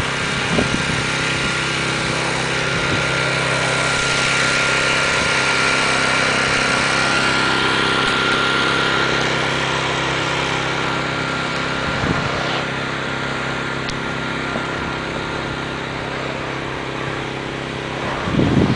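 An engine running steadily at a constant speed, with a steady high whine over its hum.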